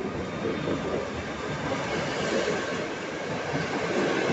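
PKP Intercity electric locomotive and its passenger coaches rolling past as the train pulls out of the station, steel wheels rumbling on the rails. The noise grows gradually louder as the coaches go by.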